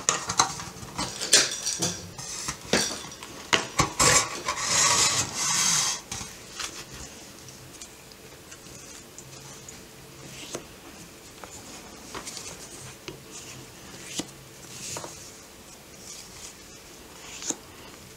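A printed metal gift tin being handled and opened: a run of clinks, knocks and scraping of the lid over the first six seconds, then quieter sliding and rustling of postcards being taken out and leafed through, with a few light taps.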